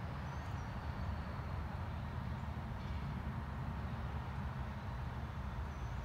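Steady low outdoor rumble, like wind or distant traffic, with a few faint high bird chirps, one about half a second in and another near the end.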